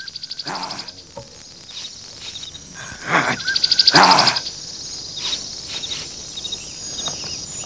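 Wild outdoor ambience of insects trilling in rapid high pulses, with a few short chirping calls. Two louder, harsh noisy bursts come about three and four seconds in.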